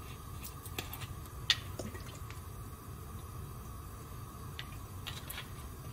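Cooking oil poured from a bottle into an empty nonstick frying pan, trickling and dripping, with a few light clicks from handling the bottle, the sharpest about a second and a half in. A steady low hum runs underneath.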